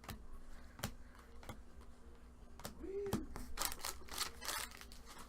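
Trading cards being handled on a table: a few separate sharp clicks, then a quick run of rustling, sliding card sounds about three and a half seconds in.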